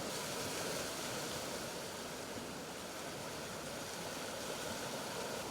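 Steady rushing noise of flowing floodwater.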